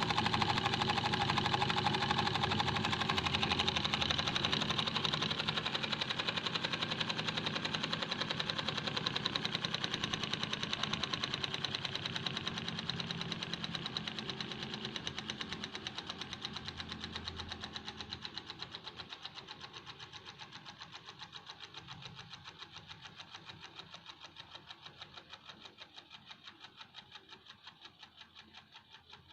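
Small homemade steam engine running with a fast, even mechanical knocking rhythm that gradually gets quieter over the whole stretch.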